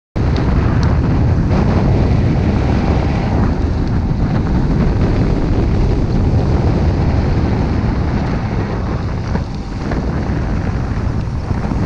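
Wind rushing over the microphone on a fast bicycle descent: a loud, steady, low rush that dips slightly about nine and a half seconds in.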